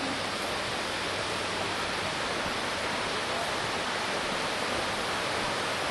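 Steady rushing of falling water from the Korbu waterfall, an even noise without change.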